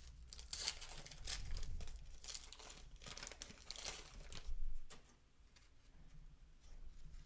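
Crisp rustling and crinkling of paper as baseball cards and their wax-pack wrappers are handled, busiest in the first five seconds and fainter after.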